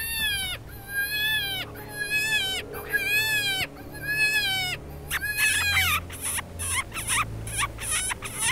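Coyote vocalizations blown on a hand-held howler call: about five yelping howls that rise and fall in pitch, a longer howl with a dropping tail, then a quick run of short yips.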